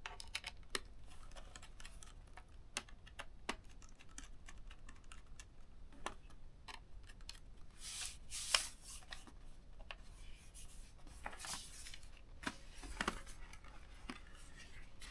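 Faint small clicks, taps and scraping from handling the plastic back access door of a ThinkPad T430 laptop as it is fitted back on, with longer rubbing scrapes about eight and eleven seconds in.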